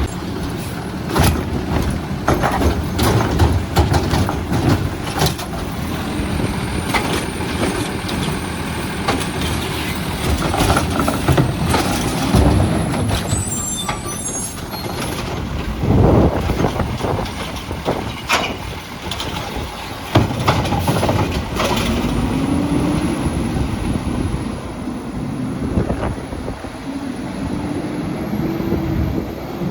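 Heil Rapid Rail automated side-loader garbage truck working carts: its engine revs up and down several times to drive the hydraulic arm. Sharp clanks and bangs come from carts being lifted and dumped, along with air-brake hisses.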